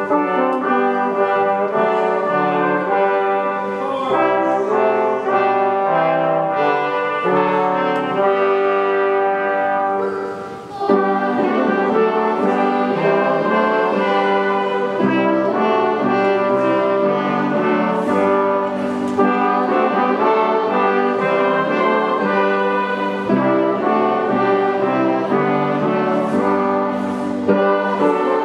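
Hymn music in full sustained chords with a brass-like tone, moving from chord to chord at a steady pace, with a brief break and fresh start about ten seconds in.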